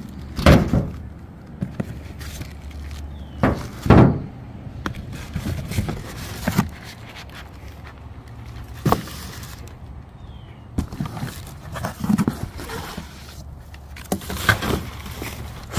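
Parts and packaging being handled: a series of knocks and thuds, the two loudest about half a second in and about four seconds in, with smaller knocks and rustling between.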